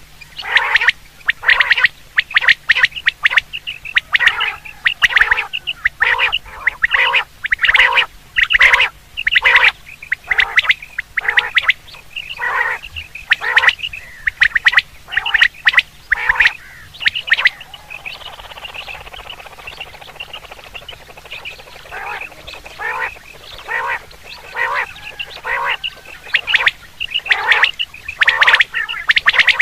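Common quail calling over and over in short, harsh notes, about two a second. The calls thin out and grow softer a little past the middle, then come loud and thick again near the end. This is a quail call track played to lure quail when hunting.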